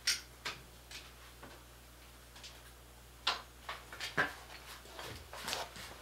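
Irregular light clicks and taps of small objects being handled on a workbench, with a sharper knock about four seconds in.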